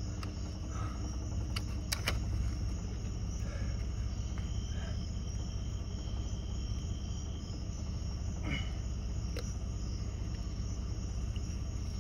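Night insects such as crickets chirping steadily over a low background rumble, with a few short sharp clicks.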